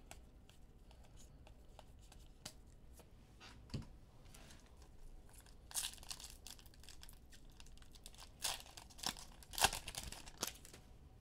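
Foil wrapper of a football trading-card pack being torn open and crinkled by hand: a run of crackling, rustling tears in the second half, loudest near the end. A few faint ticks come before it.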